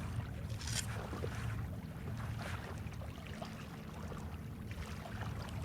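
Kayak paddling: water splashing and dripping off the paddle blades at irregular intervals, over a steady low rumble of wind on the microphone.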